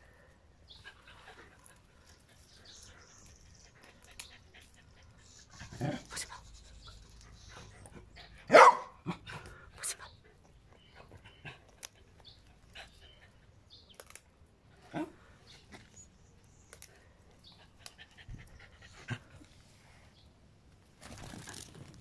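Dogs and a cockatoo at play on grass: scattered short animal sounds over a quiet background, the loudest a single sharp call or bark about eight and a half seconds in, and a brief rustle near the end.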